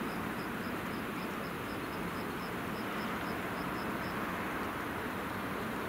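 Train hauled by an FS electric locomotive approaching along the track, a steady rumble and rail noise. Faint high chirps repeat about four times a second and stop about four seconds in.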